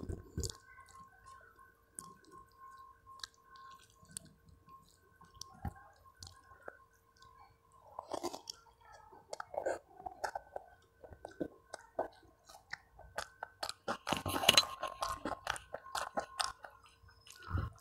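Close-miked chewing and wet mouth smacking of a person eating rice and curry by hand, with scattered clicks and a dense burst of louder smacks and crunches about fourteen seconds in. A faint steady whine sits underneath.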